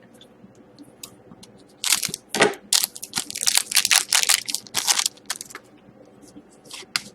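Hockey card pack wrapper being torn open and crinkled, a burst of crackly rustling starting about two seconds in and lasting a few seconds, then a few light crinkles and a sharp click near the end.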